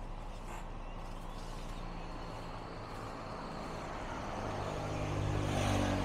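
Motor vehicle engine running nearby, with a low hum that grows louder over the last couple of seconds as it draws closer.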